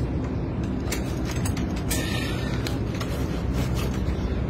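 Adjustable wrench clicking and creaking against a black plastic pipe as it is worked, with a short scrape about two seconds in, over a steady low rumble.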